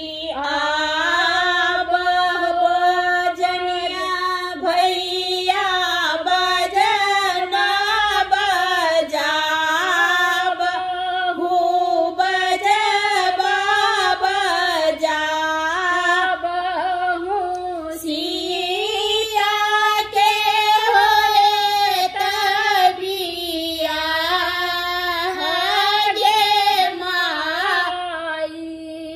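Two women singing a Maithili wedding-ritual folk song together without accompaniment, a slow melody of long held, gliding notes with short breaths between phrases.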